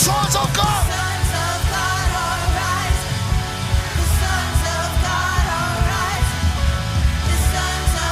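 Live worship band music with a singer vocalising in long, wavering melodic lines over a heavy bass backing.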